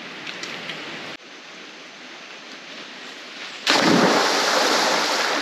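A person jumping feet-first from a tree into a river: a loud splash about two-thirds of the way in, the water churning and slowly settling after it.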